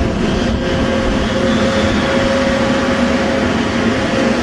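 A motor running steadily with a constant hum.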